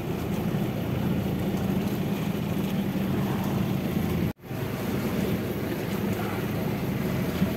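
Outrigger fishing boat's engine running steadily, a low drone with wind and sea noise over it. The sound cuts out suddenly for a moment about four and a half seconds in, then comes back.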